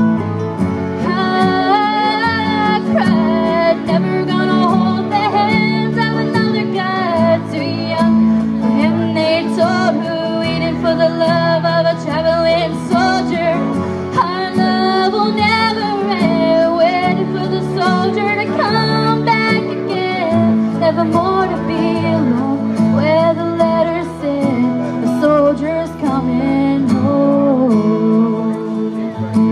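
A woman singing a country ballad into a microphone over an acoustic guitar accompaniment.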